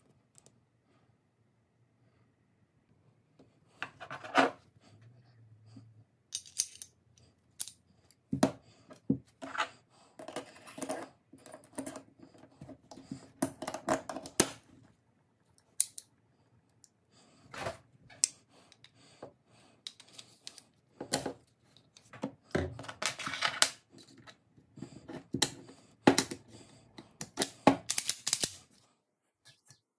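Pistol parts and small hex-key tools handled on a towel-covered table: irregular clicks, taps and short scrapes, starting a few seconds in and coming thicker toward the end.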